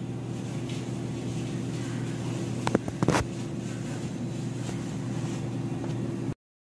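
A steady low machine-like hum of room background, with two short knocks about half a second apart a little under three seconds in. The sound cuts off abruptly near the end.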